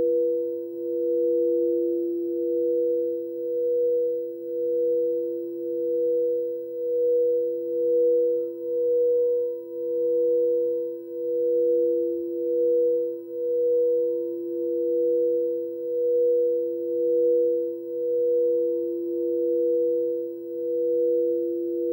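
Two frosted quartz crystal singing bowls rubbed around the rim with mallets, sounding together as two steady pure tones. The higher tone throbs in a slow, even pulse about once a second.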